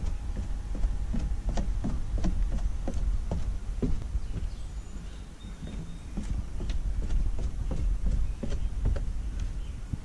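Footsteps descending wooden stairs, a steady run of hollow knocks on the boards about two a second, over a low rumble of wind on the microphone.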